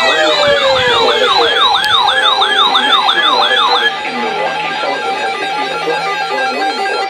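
Weather radio alarm sirens yelping fast, about three to four cycles a second, over a steady alert tone, as the radios go off for a broadcast warning. A falling siren tone dies away in the first second or so. The yelping stops about four seconds in, leaving the steady tone, which cuts off at the end.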